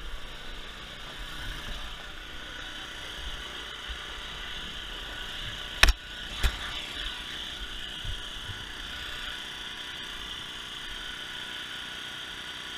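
Steady drone of an inflatable obstacle course's electric air blower running. About six seconds in come two sharp knocks half a second apart, then a softer thump.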